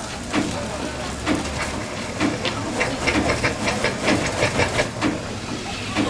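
Shay-type geared steam locomotive SL21 running, with a hiss of steam and a regular chuff about once a second. A quick run of sharp clicks, about five a second, comes in the middle.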